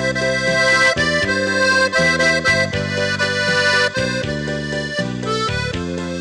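Instrumental background music: a melody over held chords, the notes changing every half second or so.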